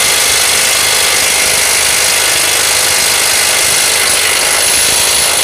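Bull BL800NM 21 V cordless impact wrench hammering steadily at its highest speed on an M24 bolt tightened to 780 Nm, breaking it loose in a single trigger pull.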